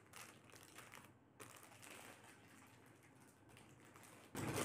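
Faint rustling and light clicking as a clear plastic jewellery packet is handled and opened, then a sudden louder crinkling of the plastic near the end as the set is pulled out.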